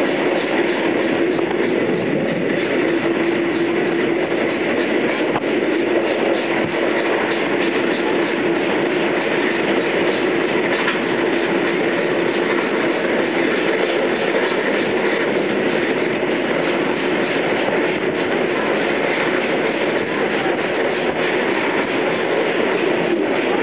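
Vintage railway passenger carriage running steadily along the track, heard from inside, with the wheels rolling on the rails. A steady humming tone runs through the first half.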